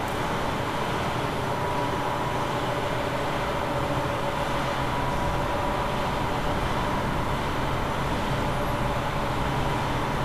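Drive machinery of a telescope dome's elevating floor running steadily as the floor lowers, a constant hum with faint steady tones.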